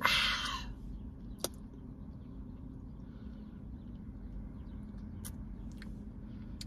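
Mouth sounds of drinking a thick milkshake through a straw: a short airy noise right at the start, then a few faint mouth clicks while tasting, over a low steady hum.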